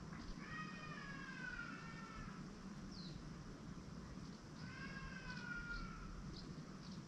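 Two long animal calls, each about two seconds and falling slightly in pitch, with short high bird chirps and faint ticks between and after them over a low steady background hum.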